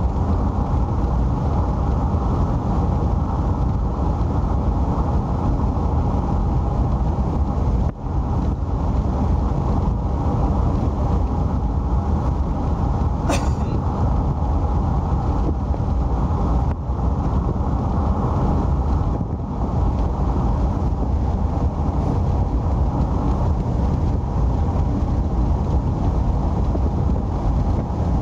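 A car driving steadily at speed, a continuous rumble of tyres, engine and wind. A single short, sharp click about halfway through.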